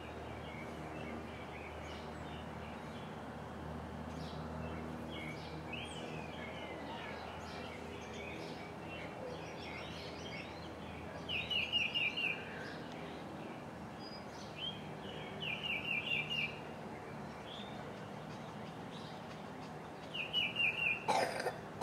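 A bird calling: a few scattered chirps, then three quick runs of five or six short notes each, a few seconds apart, over a steady low hum. A sharp knock near the end.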